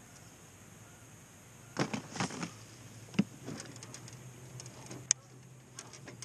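Clicks and knocks of a spinning rod and reel being worked while a jerkbait is fished: a quick cluster about two seconds in, a sharp click a second later, and scattered lighter ticks after that. Under them runs a faint steady low hum.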